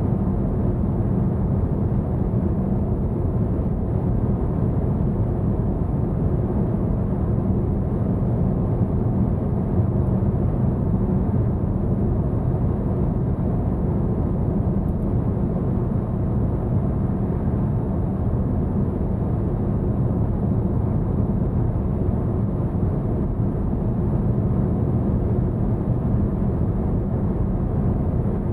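Steady low road and tyre rumble with wind noise inside the cabin of a 2021 Volvo V90 at highway speed, running in its all-electric "Pure" mode. The noise holds even and unchanging throughout.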